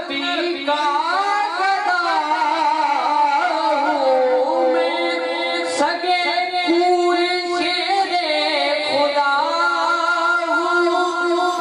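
A man singing an Islamic devotional recitation (naat) into a microphone, solo, in long held notes that wind up and down in pitch.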